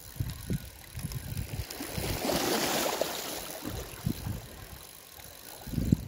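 Wind buffeting the microphone in irregular low thumps, over water lapping at a rocky shoreline, with a louder rush of hiss from about two to three seconds in.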